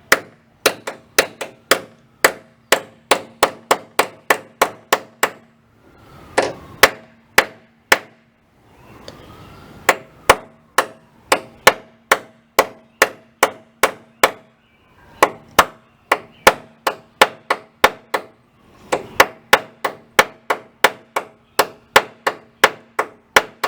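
Hammer driving a drift punch against a VW Beetle door hinge pin to knock the last of the pin out: sharp metal-on-metal blows, about two or three a second, in several runs with brief pauses, each with a short ring.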